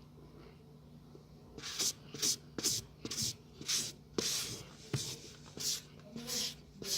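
Mouth-close chewing of a mouthful of powdered starch mixture: short crisp crunches, about two a second, starting about one and a half seconds in.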